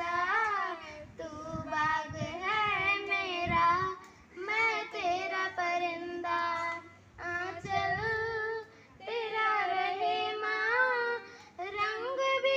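A schoolgirl singing a Hindi patriotic song into a microphone, unaccompanied. She sings in phrases of two to three seconds, with short breaths between them.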